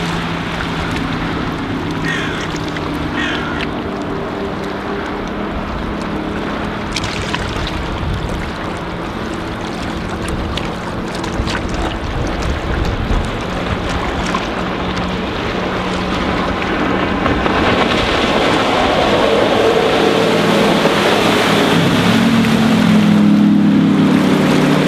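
Sterndrive speedboat's MerCruiser 4.3-litre V6 running at speed. Its steady hum fades as the boat runs far off, then grows louder over the last few seconds as it swings back close by, with water rushing under the hull and wind buffeting the microphone.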